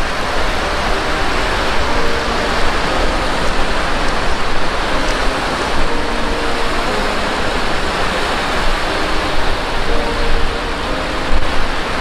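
Small waves breaking and washing up on a sandy beach: a steady, even hiss of surf.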